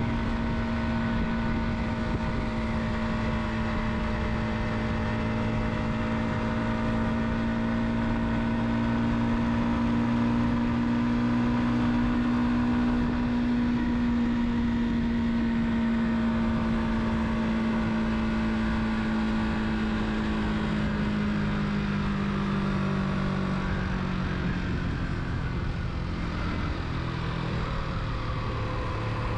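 Car engine and tyre noise while driving, the engine note steady and then sinking slowly in pitch about two-thirds of the way through as the car eases off.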